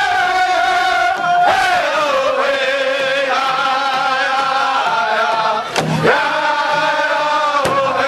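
Background music of long held, chant-like notes that move to a new pitch every second or so.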